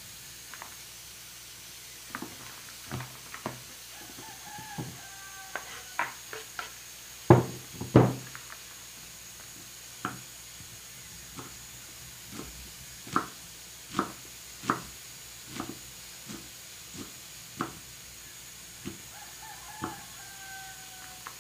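Kitchen knife chopping banana flower florets on a round wooden chopping block: irregular sharp knocks, the two loudest about seven and eight seconds in. A rooster crows in the background about four seconds in and again near the end.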